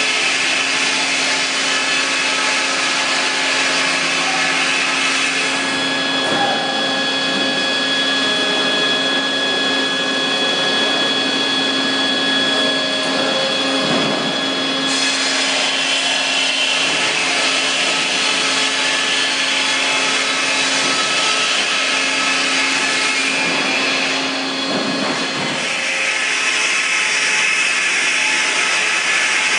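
Sawmill machinery running: a Cooper short-log overhead sawing line with a steady motor hum under a loud rushing noise that eases and returns a few times.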